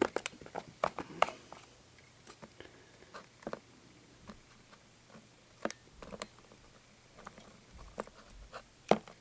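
Light clicks and taps of small plastic toy figures being handled and set down, clustered in the first second or so, sparse after, with a sharper click near the end.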